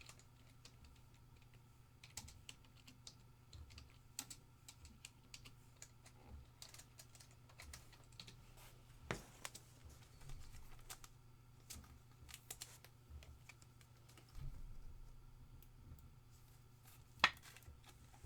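Typing on a computer keyboard: light, irregular key clicks, with one sharper click near the end, over a faint steady low hum.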